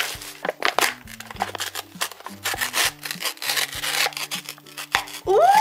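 Packaging of a cup of instant udon being handled: a run of short scratchy rustles and crinkles as the plastic wrap is pulled away and the foil lid is peeled back. Right at the end a woman gives a loud, rising "ooh".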